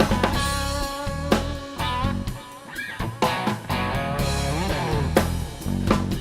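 Rock music with guitar over bass and drums, some guitar notes bending in pitch; the band thins out and quietens for a moment in the middle, then comes back in.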